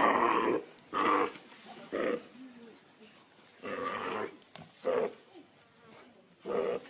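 Loud, short animal cries, about six in a row at irregular spacing, from a deer being attacked by wild dogs (dholes).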